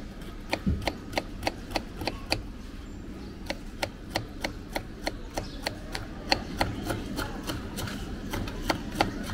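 Kitchen knife chopping a cucumber on a wooden cutting board. The blade makes quick, even knocks on the board, about three to four a second.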